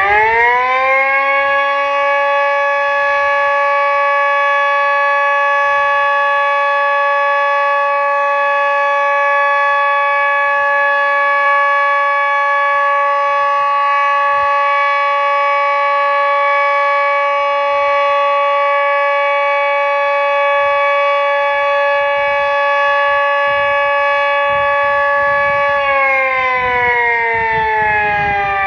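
Red Arrow Model 30 siren finishing its wind-up and holding a loud, steady tone. Near the end it begins winding down, the pitch falling steadily.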